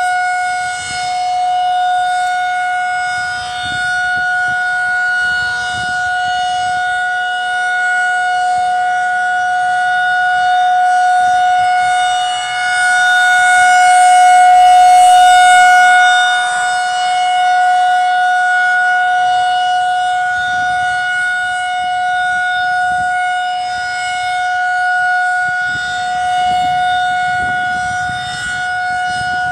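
Federal Signal 2001-SRN outdoor warning siren sounding a steady, single-pitched wail for its scheduled test. The wail swells and fades in loudness as the rotating siren head turns, and is loudest about halfway through.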